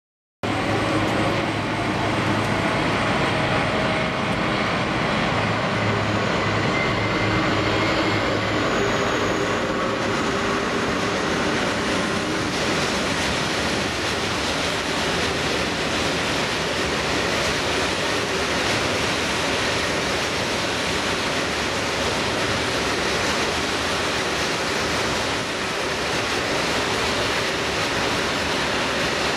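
SNCF BB 75000-class diesel-electric freight locomotives passing with a freight train, their engines' low, steady drone heard for roughly the first ten seconds. After that comes the continuous rolling noise of freight wagons going by on the track.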